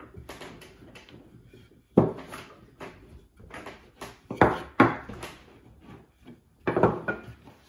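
A wooden rolling pin rolls out a sheet of fresh egg pasta dough on a wooden board, with steady rubbing and a few wooden knocks and thumps, about four, as the pin and hands press and shift the dough.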